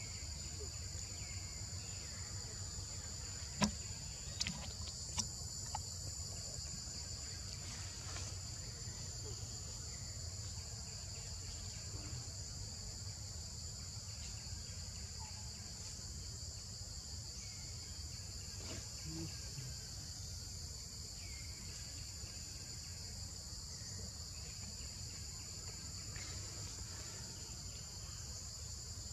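A steady, high-pitched insect drone on two constant pitches from the forest, over a low background rumble. A few sharp clicks come about four to six seconds in.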